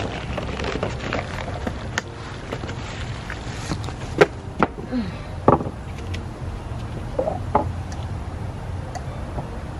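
Steady low rumble of outdoor background noise with about five sharp clicks and knocks scattered through, the loudest a little over four and five seconds in.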